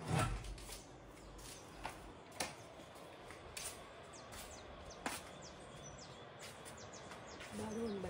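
Wooden louvered shutter doors being pushed open with a low thump right at the start. Then faint open-air quiet with scattered clicks and a few short, high bird chirps.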